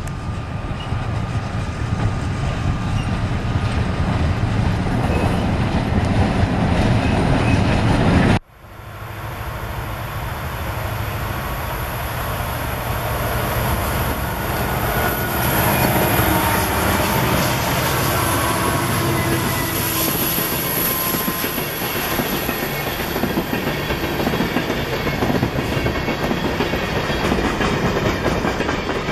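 Freight train with diesel locomotives passing close by: a heavy rumble of engines and wheels, then a long string of loaded hopper cars with the clickety-clack of wheels over rail joints and some faint wheel squeal. The sound cuts off abruptly about eight seconds in and picks up again at once as the train approaches.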